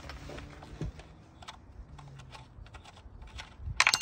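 Small metal clicks and taps of a hand-held Allen wrench working the ignition coil hold-down bolts on an engine's valve cover, with a quick burst of louder clicks near the end as the coil is handled.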